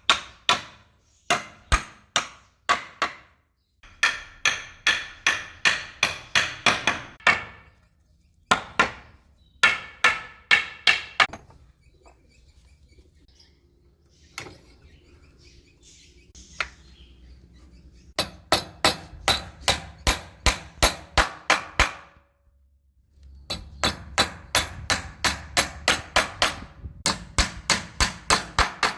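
Hammer blows in quick runs of about three strikes a second, each with a short ringing tail, as a wooden window frame is knocked together. There are a few pauses between runs.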